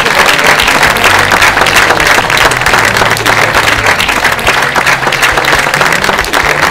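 Large audience clapping, a dense, continuous applause.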